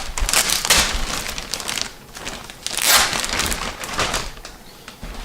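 Packaging rustling and crinkling in irregular bursts as a boxed rack-mount server case is worked out of its wrapping, with a loud burst about three seconds in.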